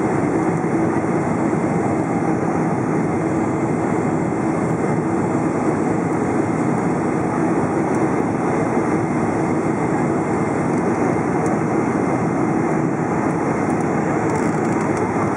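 Steady cabin roar of a Boeing 747-400 on final approach, heard from a seat over the wing: its Rolls-Royce RB211 turbofans and the rush of air over the extended flaps, unchanging throughout.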